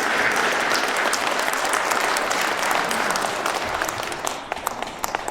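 Audience applauding. The clapping thins out after about four seconds to a few last separate claps and stops near the end.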